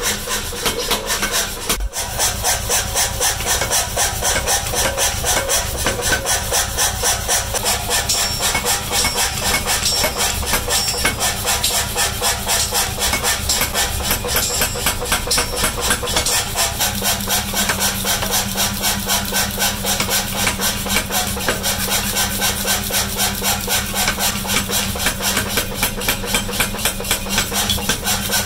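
Power hammer forging a red-hot steel block, the ram striking in a steady rapid rhythm of about four blows a second over the hum of the machine's motor.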